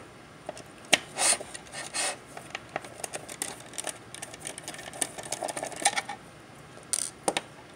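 Small screws being turned out of the back plate of a BrightSign HD224 media player with a precision screwdriver: irregular scratchy clicks of the bit working in the screw heads, with a few louder scrapes and rattles about a second in, two seconds in and near the end.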